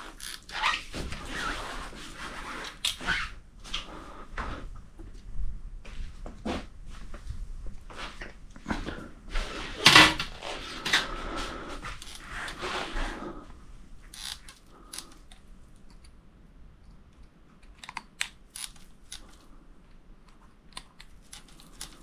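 Close handling at a bicycle handlebar: rustling and crinkling of the plastic-wrapped grip and rag under the hands, with small clicks and taps from the hydraulic brake lever and tools. It is loudest around ten seconds in and thins to scattered ticks over the last several seconds.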